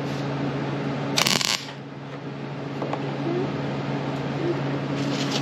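A wire-feed welder's arc crackling in one short burst of under half a second, about a second in: a quick tack weld. A steady electrical hum runs underneath.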